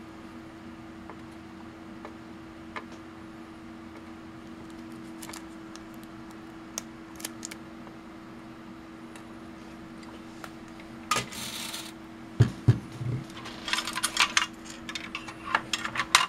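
Steady low hum with a few faint clicks while work goes on inside an opened multimeter. About eleven seconds in there is a brief hiss and a couple of thumps, then a run of clinks and rattles as metal and plastic parts of the meter's chassis are handled and fitted.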